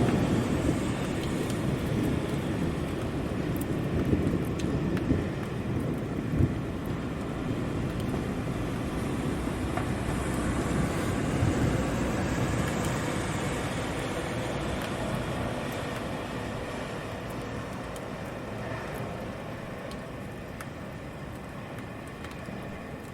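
City rain ambience: a low rumble of thunder dies away over the first few seconds, leaving steady rain mixed with the hiss of road traffic. The whole wash grows gradually quieter toward the end.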